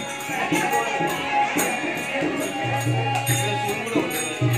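Music with repeated percussion strikes over held tones and a low tone that comes and goes.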